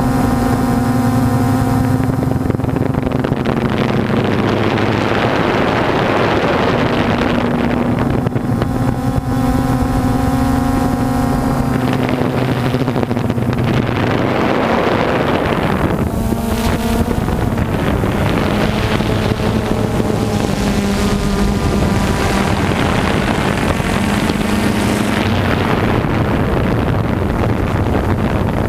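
A motor vehicle's engine running steadily, its pitch dipping and rising briefly about sixteen seconds in, under swells of rushing noise.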